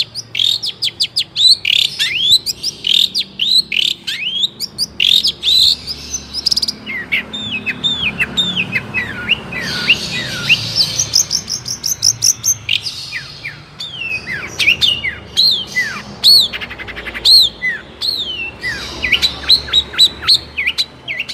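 Long-tailed shrike (cendet) singing a fast, varied song of sharp chirps and downward-slurred whistled notes, with rapid rattling trills in places.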